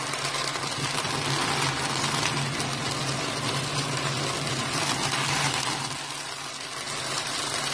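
Pork chops sizzling in bubbling butter and oil in a frying pan: a steady crackling hiss over a low, steady hum.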